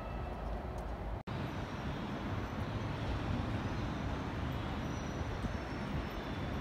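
Steady outdoor background noise: a low rumble with an even hiss over it, with no distinct event. It drops out for an instant about a second in, at a cut between shots.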